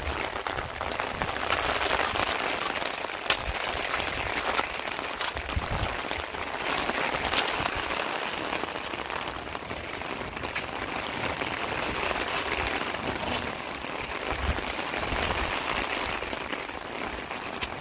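Heavy rain falling steadily, a dense patter of drops with sharp ticks of individual drops striking a surface.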